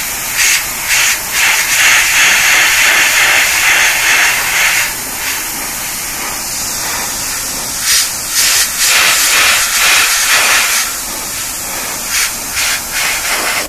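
Airbrush spraying paint on compressed air at about 60 to 80 psi: a hiss that comes in short pulses and in two longer, louder passes.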